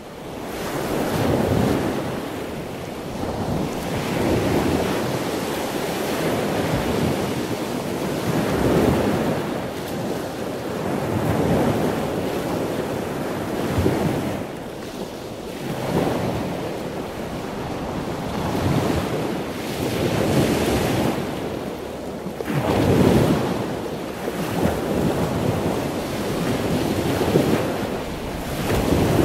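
Wind buffeting the microphone over choppy open sea, with the rush of waves rising and falling in repeated surges.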